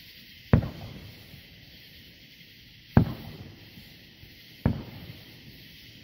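Aerial firework shells bursting in the sky: three sharp booms, the first about half a second in, then near 3 s and 4.7 s, each followed by a brief rumble.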